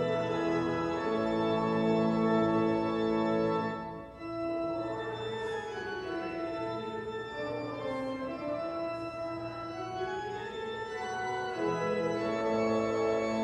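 Church organ playing slow, sustained chords, with a short break in the phrase about four seconds in.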